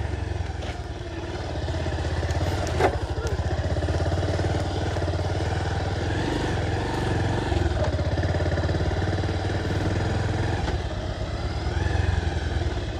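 Motorcycle engine running steadily while under way, with one short sharp click about three seconds in.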